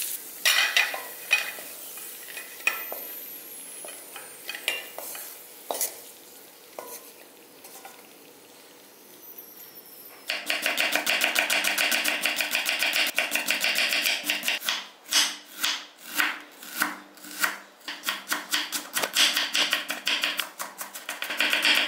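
Wooden spatula stirring and scraping fried cashews and nuts in a kadai, a few sparse clicks over a faint sizzle. About ten seconds in, a knife starts chopping white onion on a wooden board in a fast, even rhythm of strikes, which breaks into separate louder chops for a while before running fast again.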